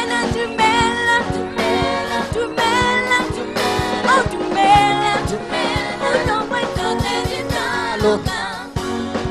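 Live gospel music: singers performing a praise song over a band, with a steady drum beat under the voices and chords.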